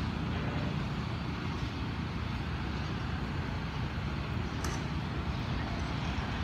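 Low, steady rumble of an Alsthom diesel-electric locomotive running as it draws slowly into the station, with a single sharp click about four and a half seconds in.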